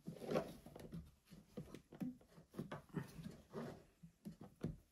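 Soft, irregular handling knocks and rubs as a rubber band is stretched over a ski binding's brake to hold it up and out of the way.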